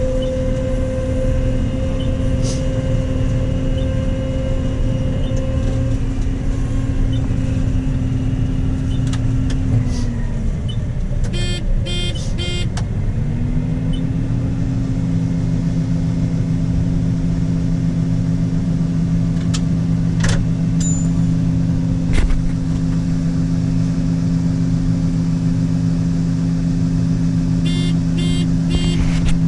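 Combine harvester running steadily, heard from inside the cab while combining soybeans. Its hum dips in pitch for a few seconds about ten seconds in and then settles back. Two short runs of rapid electronic beeping sound partway through and near the end.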